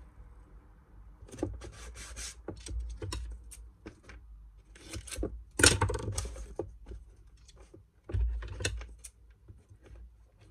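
Brown paper tape and a cardboard cereal box being handled: the tape crinkles and rubs as it is folded over and pressed onto the box's edges. Irregular rustles and small clicks, the loudest a short rustle a little past halfway.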